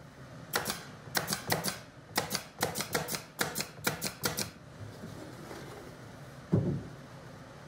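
Cordless pin nailer firing pins into thin pine planks: a rapid run of sharp clacking shots, often two or three in quick succession, for about four seconds. A single dull thump follows near the end.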